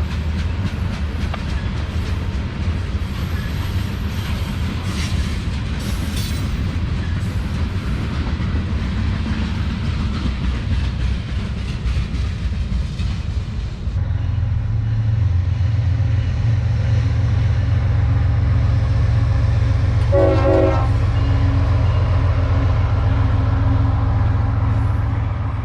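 Freight train rolling past with rail cars clattering over the track. About halfway through, the sound changes to diesel locomotives running loud and steady, with a short horn sound a little later.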